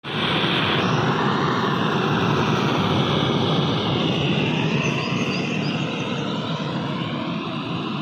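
Gas torch fed from a cylinder, burning with a steady rushing roar. The flame is playing on a metal tool on the ground. The sound starts abruptly.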